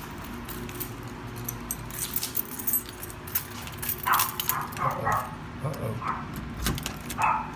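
A ring of keys jangling and clicking as a key is worked into a door's deadbolt. From about four seconds in, a dog on the other side of the door gives excited high-pitched cries.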